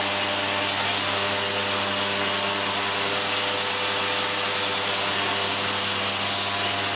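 Steady running noise of an electric shop machine: a loud, even hiss over a constant motor hum, unchanging throughout and cutting off suddenly at the end.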